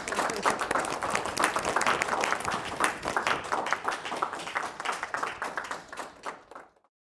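Audience applauding with dense, irregular clapping that fades away near the end.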